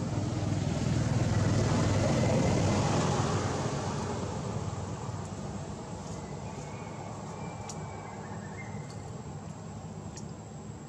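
A motor vehicle passes by: its engine and road noise swell over the first couple of seconds and fade away by about six seconds in, leaving a low steady background with a few faint short whistles.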